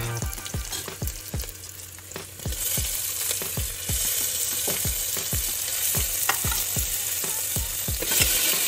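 Chopped vegetables sizzling as they drop into hot oil in an aluminium pressure cooker and are stirred with a ladle; the sizzle starts up about two and a half seconds in and swells near the end as more vegetables go in. A steady low beat runs underneath.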